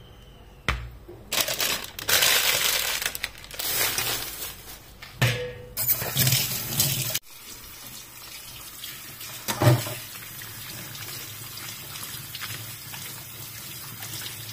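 Tap water pouring into a plastic colander of raw chicken pieces in a stainless-steel sink, splashing as hands rinse the chicken. It runs loud and uneven at first, then cuts to a steadier, quieter flow about halfway through, with a single knock a few seconds later.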